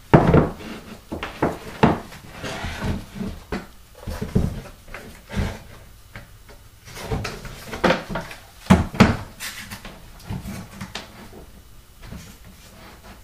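Green painter's tape being pulled off the roll in short rips and pressed around an RC plane's elevator and stabiliser, with irregular knocks and rustles as the parts are handled on a wooden workbench.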